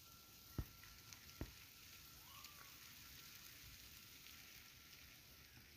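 Near silence: faint outdoor hiss, broken by two sharp clicks in the first second and a half.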